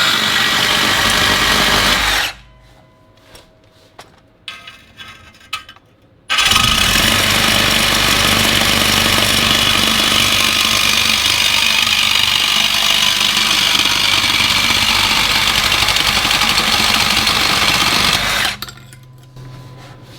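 Power tool cutting through a corroded steel exhaust pipe. It runs briefly, stops for a few seconds with a few light knocks, then cuts again for a long stretch and stops near the end.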